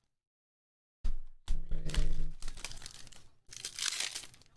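Foil wrapper of a trading-card pack crinkling and tearing as it is opened by hand, in several rustling spells starting about a second in.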